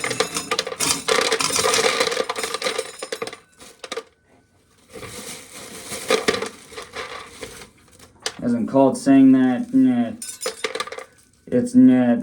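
Dried corn rattling against metal: a dense clatter of many small hard impacts, in two spells with a short pause between.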